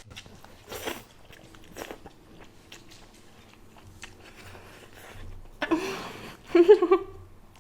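Close-miked eating sounds: a person chewing and biting food, with scattered small crunches and mouth smacks. A brief voiced sound from the eater comes near the end.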